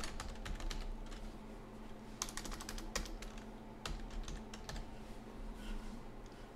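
Computer keyboard typing: quick runs of key clicks in the first three seconds, then a few single keystrokes.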